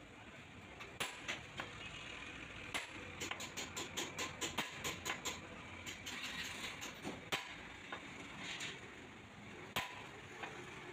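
Hammer blows on metal while a bush is knocked into a Mahindra 575 DI tractor's front axle: a few separate strikes, then a quick run of taps, about four or five a second, for a couple of seconds, then single blows again.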